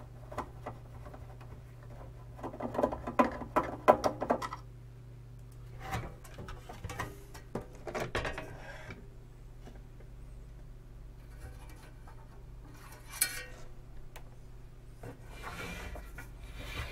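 Handling noise from dismantling an Arcam Alpha 6 CD player: a quick run of clicks and rattles from the screwdriver and loose parts, then plastic and sheet-metal clatter and rubbing as the CD mechanism is lifted out of the steel chassis, with a single sharp knock near the end. A steady low hum runs underneath.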